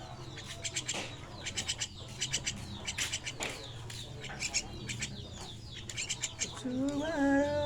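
Young starlings calling in repeated short bursts of rapid, high chattering. Near the end comes a longer, lower call that wavers in pitch.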